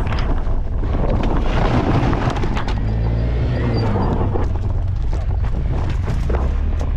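Motor scooter riding, its engine running under a rush of wind buffeting the microphone, with scattered knocks and rattles.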